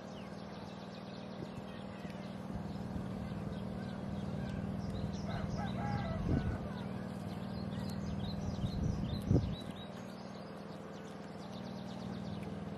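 Small birds chirping again and again over a steady low hum, with two brief dull knocks about six and nine seconds in.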